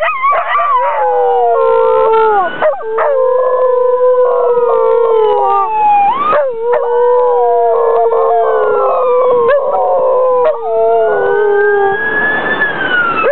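Two half-Lab/half-Australian Shepherd dogs howling together at a passing ambulance siren, which wails behind them. Their long overlapping howls slide slowly down in pitch, with short breaks for breath.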